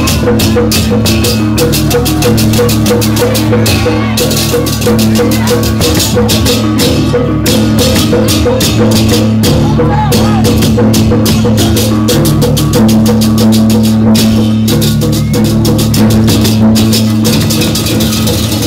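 Balinese baleganjur gamelan playing: fast, dense clashing of cengceng cymbals over ringing gong tones and drums.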